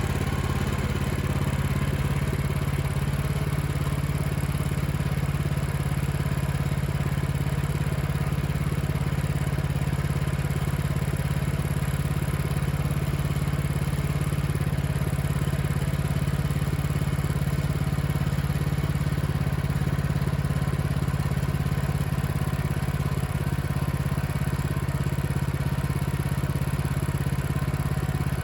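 Engine running steadily at a constant speed, its pitch and loudness unchanging.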